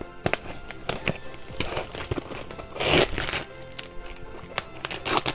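Packing material crinkling and rustling as a cardboard box is unpacked by hand, with scattered sharp crinkles and one louder tearing crinkle about three seconds in. Background music plays underneath.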